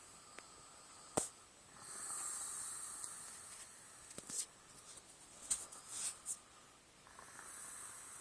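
Snoring: slow, hissy breaths, one starting about two seconds in and a second near the end, with a few sharp clicks between, the loudest about a second in.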